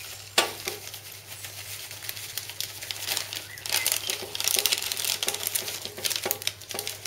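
Plastic bags crinkling and rustling as salt granules are poured from them into plastic canisters, the grains pattering in, busier in the second half. A sharp click about half a second in.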